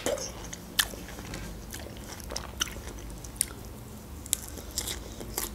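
A woman biting into and chewing fresh strawberries, with sharp wet clicks of the mouth about once a second; the loudest comes about a second in.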